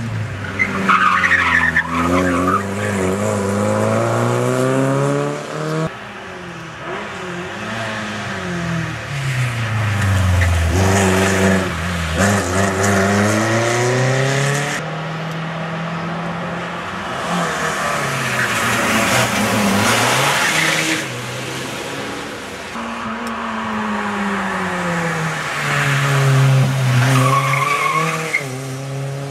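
Several rally cars driven hard one after another, engines revving up and down through gear changes as each passes. Tyres squeal through corners near the start and again near the end.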